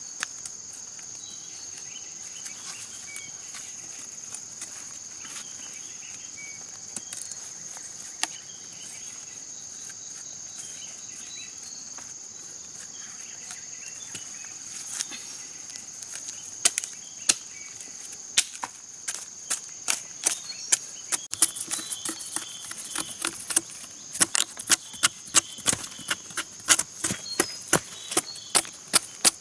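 Machete blade chopping into a giant taro corm: scattered knocks at first, then quick repeated chops, about two to three a second, through the second half. A steady high insect trill runs underneath.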